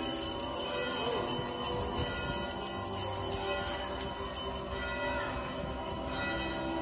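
Bells ringing steadily, with many overlapping ringing tones and small strikes, and some music underneath.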